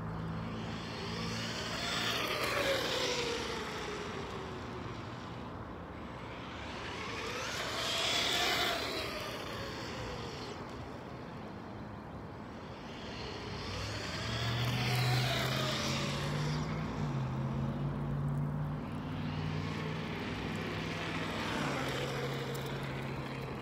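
Traxxas Stampede 4x4 RC monster truck with a 4,350 kV brushless motor making about four high-speed passes a few seconds apart. Each pass brings a high motor whine that drops in pitch as the truck goes by, with tyre noise swelling and fading.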